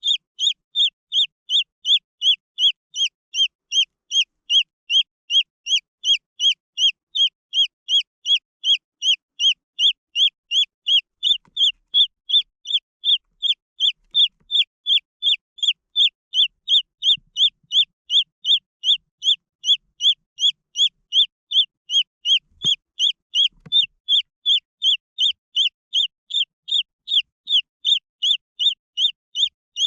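Green junglefowl chick peeping: a steady, evenly spaced run of short high peeps, about two and a half a second.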